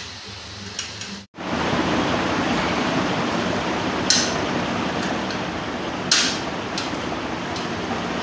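Screwdriver clicking sharply against a steel AC wall-mounting plate a few times while the plate's screws are driven, over a steady hiss that starts after a brief dropout about a second in.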